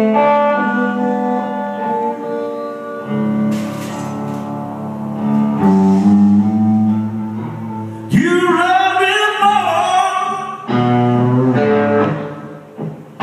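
A blues song played live with guitar and bass: held instrumental notes, then a man's voice comes in singing with vibrato about eight seconds in, with a short break before the singing resumes.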